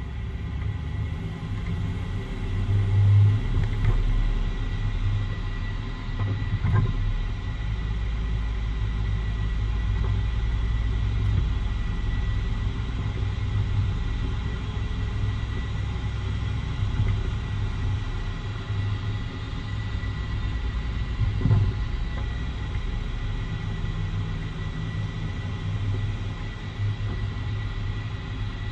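2013 Jeep Wrangler Unlimited driving, with a steady low rumble from the drivetrain and road and a faint steady whine. A few short knocks stand out: about a quarter of the way in and again about three quarters through.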